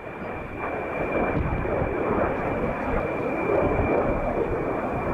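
BAE Hawk T1 jets of the Red Arrows flying in formation, their engines giving a steady jet rumble that swells over the first couple of seconds, with a thin steady high tone running through it.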